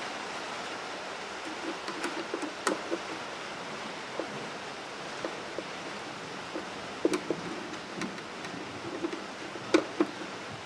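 Hand screwdriver driving home the screw that holds a MIG welder's wire-feed drive roll: scattered small clicks and taps of metal on metal over a steady background hiss, with the sharpest clicks about seven seconds in and again near the end.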